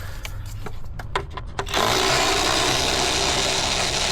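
A few clicks and knocks of tools on metal, then about two seconds in a hand-held power tool starts up and runs steadily and loudly, driving a bolt, as a 12 mm fastener is worked during a radiator removal.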